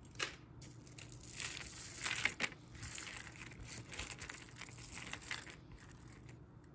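A beaded necklace being handled on a tabletop: a run of irregular clicks and rustles as the beads knock together and drag across the surface while it is spread out and untangled.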